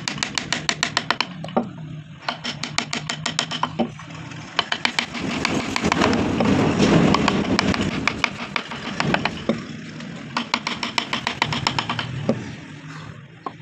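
Hand-pushed carving gouge cutting into an MDF panel: several runs of rapid scraping clicks as the blade chatters through the board. A steady low hum lies underneath, with a louder rushing swell midway.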